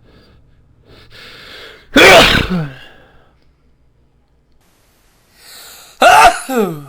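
A person sneezing twice, about four seconds apart; these are deliberately induced sneezes. Each loud "ahchoo" comes after a short gasping in-breath and ends in a voiced tail that falls in pitch.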